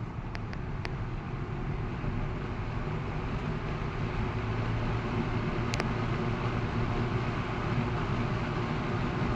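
1976 Lakewood S14 14-inch box fan running: a steady whoosh of moving air over a low motor hum, building slightly over the first couple of seconds. A few faint clicks come near the start and one about six seconds in.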